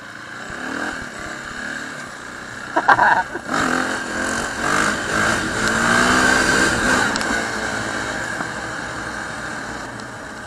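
KTM 525 EXC single-cylinder four-stroke dirt bike engine under way with wind rushing past the helmet. The engine pitch climbs and falls through the middle few seconds as it accelerates and shifts gears. A brief loud sound comes about three seconds in.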